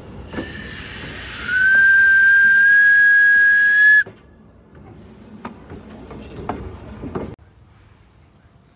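1920 Baldwin steam locomotive's whistle blowing: a rush of steam hiss, then a single steady high tone that rises slightly as it comes in and holds for about two and a half seconds before cutting off suddenly.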